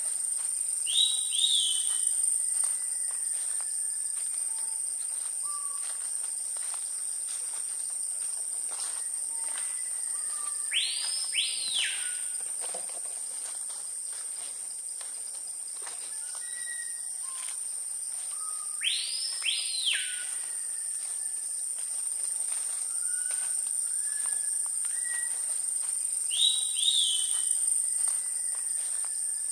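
Tropical rainforest ambience: insects keep up a steady high-pitched drone while birds whistle softly, and a louder sweeping bird call sounds four times, several seconds apart.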